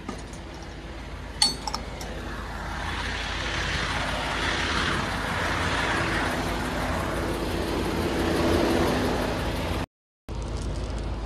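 A vehicle running nearby: a broad rushing noise that swells over a couple of seconds and holds, with a faint steady hum under it. There is a single metallic clink about a second and a half in, and the sound cuts out briefly near the end.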